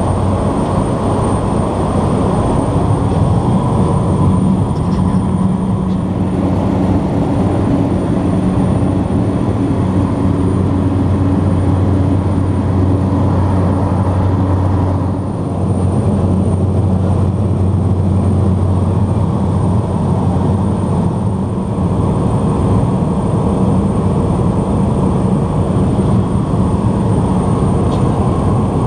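Cabin noise of a de Havilland DHC-3 Otter floatplane in cruise: a steady, loud drone of engine and propeller with a low hum.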